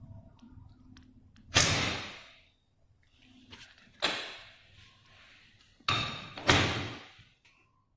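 A door fitted with an electronic lock banging: four sharp thuds, about a second and a half, four, six and six and a half seconds in, each ringing on briefly, with a few faint clicks before the first.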